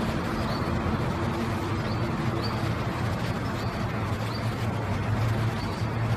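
Lesser whistling duck ducklings peeping: short, high peeps about once a second over a steady low hum.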